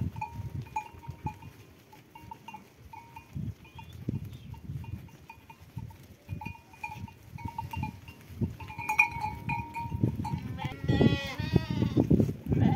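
Flock of sheep moving past, with a small bell clinking over and over, and one sheep giving a loud bleat near the end.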